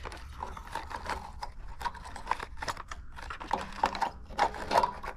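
Irregular small clicks and rattles of wires and parts being handled as the wires are switched over from the old electric water heater thermostat to the new one.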